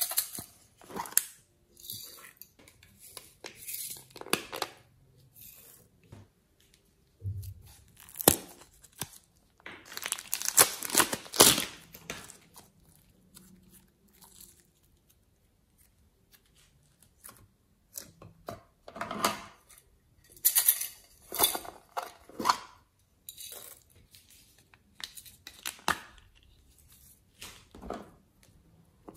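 Hands handling slime ingredients: a plastic container picked up and handled, and soft yellow modelling clay stretched and pulled apart, giving a run of short, irregular sticky tearing and crackling sounds with quiet gaps between.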